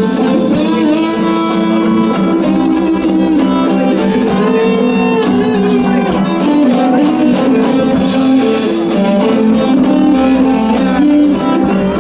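Music: a guitar-led track with a steady beat.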